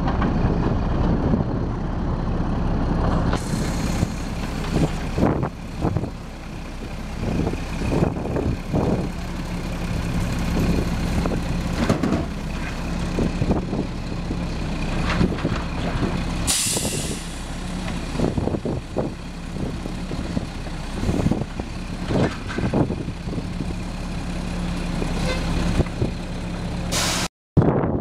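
Automated side-loader garbage truck working a recycling cart: the diesel engine runs steadily under the hydraulic arm as it lifts, dumps and sets down the cart, with repeated clunks and knocks of the cart and arm. A sharp air-brake hiss comes about two-thirds of the way through.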